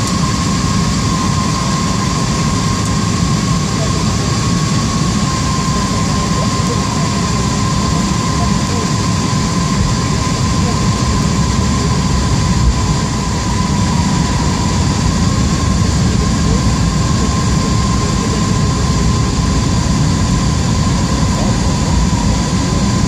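Steady cabin noise of an Airbus A321 airliner in descent, heard inside the cabin: a low rumble of engines and airflow with a thin, steady whine over it.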